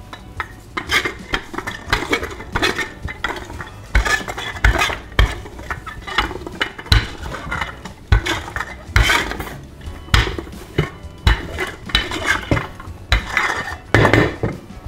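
Wooden rolling pin rolling out yeast dough on a floured countertop: a run of irregular knocks and thuds as the pin is pushed and lifted, with a scraping rolling noise between them.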